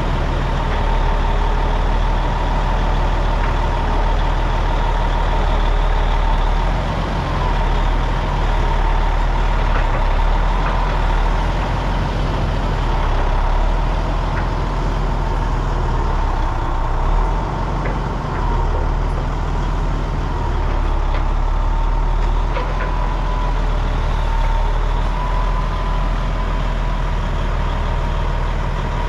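A heavy truck's engine running steadily: a deep, even hum with a thin, steady high whine over it.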